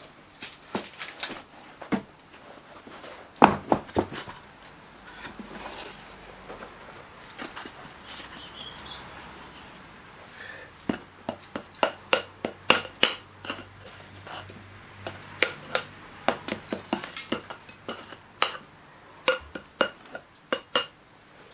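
Hot castings being knocked out of sand moulds into a galvanised metal tub: a metal rod and the wooden flasks knocking against the tub, the sand and the cast metal, giving many sharp clinks and knocks. The loudest knock comes about three and a half seconds in, and the knocks come thick and fast in the second half.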